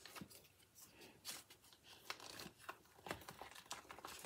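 A wooden craft stick stirring a thick mix of lightweight spackle and brown paint in a plastic tub, mixing it into fake buttercream frosting. The sound is faint, irregular scraping with small clicks against the tub.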